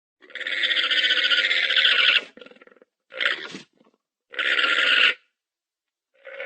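A farm animal calling: one long harsh, raspy call followed by three shorter ones.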